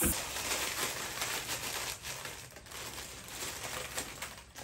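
Plastic Wai Wai instant-noodle packets crinkling as they are handled and crushed, with many small scattered crackles.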